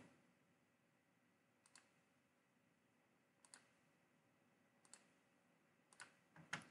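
Faint computer mouse button clicks, about five of them spread through a near-silent stretch, each a quick press-and-release pair, as the arrow ends are grabbed and dropped.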